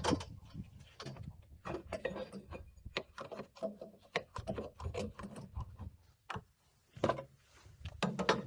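Irregular clicks, knocks and clanks of metal clamps and an aluminium workpiece being handled and set up on a bench, with a short lull about six seconds in.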